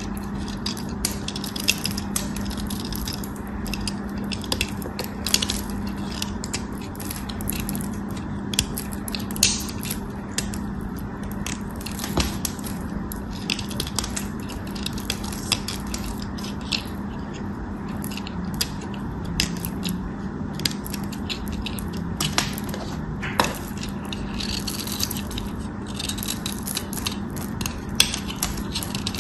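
Snap-off craft knife blade shaving and cutting into a dried, starch-coated piece of soap, giving a steady stream of irregular crisp crackles and crunches as flakes break away.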